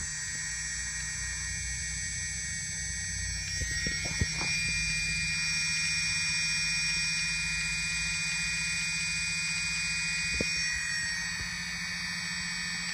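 Brushless motors of an Elev-8 v2 quadcopter running steadily with a high-pitched whine and low hum, broken by a few sharp clicks about four seconds in and again near ten seconds: the motor clicking being shown as a fault.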